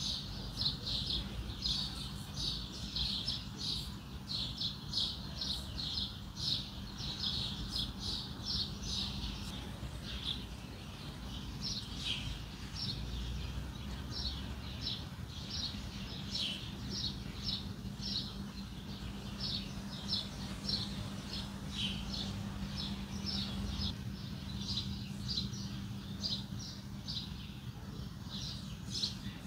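Birds chirping over and over, several short chirps a second, with a steady low hum underneath.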